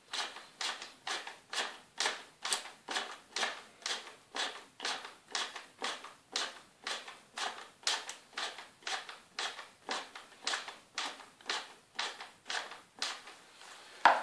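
Spring tensioner at the bottom of a banner spindle being turned with a flat screwdriver, winding up the roller spring: a steady series of short clicks, about two a second. They stop shortly before the end, and one sharper, louder click follows.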